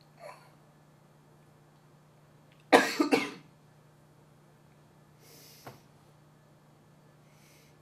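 A man coughing, a quick cluster of two or three sharp coughs about three seconds in, with soft breaths before and after. A steady low hum runs underneath.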